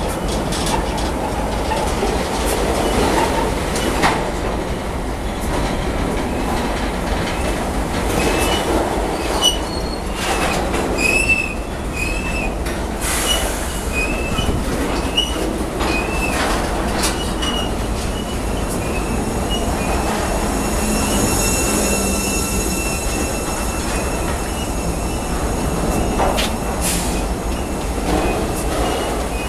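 A freight train of tank wagons rolling past at close range: steel wheels running on the rails with scattered knocks and clunks. Short wheel squeals chirp again and again in the middle, and a steady high squeal rings for a few seconds after that.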